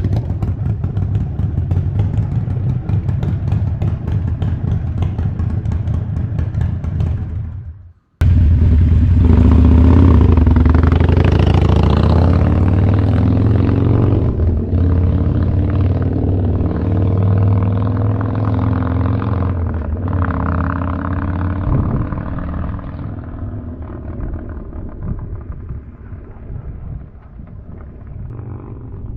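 2017 Harley-Davidson Sportster Roadster's 1200 cc V-twin running through a Vance & Hines aftermarket exhaust. It runs steadily, cuts out abruptly about eight seconds in, then comes back and revs up and down before gradually getting quieter toward the end.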